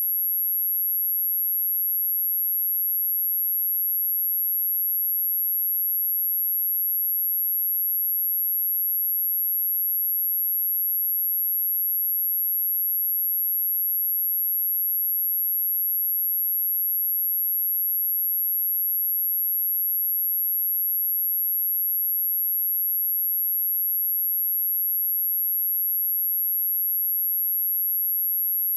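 A pure sine-wave test tone at 11607 Hz, a single steady high-pitched whistle held at constant level, used as a speaker test and speaker-cleaning tone.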